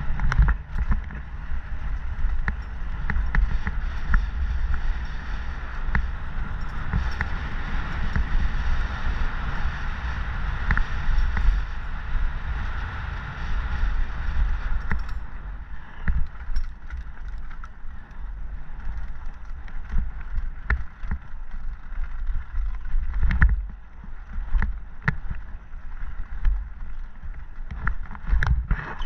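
Mountain bike descending a dirt trail at speed: a steady rumble and hiss of wind and tyres on packed dirt, with frequent sharp clicks and knocks as the bike rattles over bumps.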